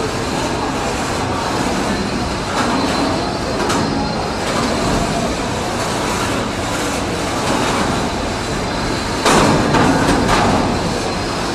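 Beetleweight wedge combat robots battling in the arena: a steady din of drive motors and scraping, with occasional knocks and a louder burst of impact noise about nine seconds in.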